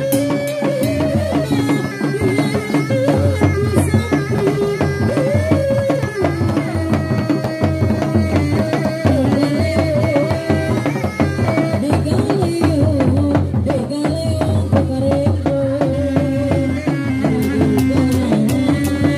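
Sundanese reak ensemble playing live: dogdog drums beaten in a fast, dense interlocking rhythm, with a melody of held notes that shift and waver in pitch over the drumming.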